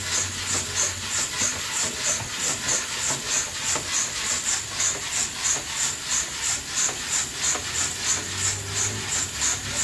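Coffee beans tumbling and hissing in an old-fashioned hand-cranked coffee roaster over a wood stove, a rhythmic swish about two to three times a second over a steady hiss.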